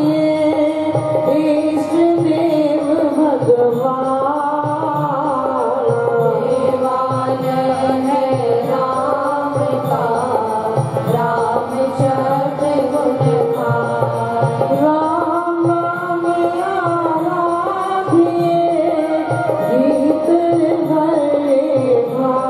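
A group of women singing a Hindu devotional hymn (bhajan) together to harmonium accompaniment, the harmonium's reedy held notes under the voices.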